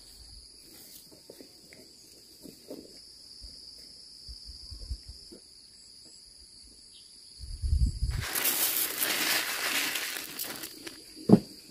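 Insects trilling steadily in the background; about eight seconds in, a plastic bag crinkles and small seeds pour from it into a woven bamboo basket for a few seconds, followed by a single sharp knock near the end.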